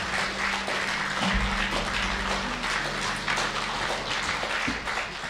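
Audience applauding steadily after a live jazz set, tailing off near the end.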